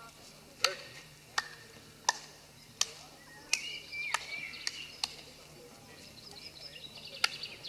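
Single hand claps from the centre of an ancient open-air stone theatre, heard clearly from high up in the seats: about nine sharp claps, roughly one every second or less, with a pause of about two seconds before the last one. Faint bird chirps come in about halfway.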